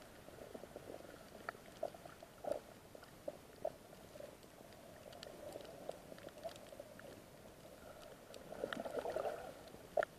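Underwater sound on a coral reef, heard through an action camera: a steady muffled rush with scattered sharp clicks and crackles, swelling louder for about a second near the end.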